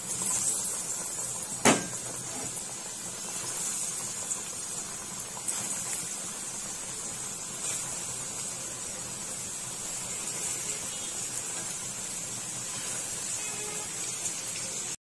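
Flour-and-egg-coated chicken pieces deep-frying in hot oil in a pan: a steady sizzle, with one sharp knock a couple of seconds in.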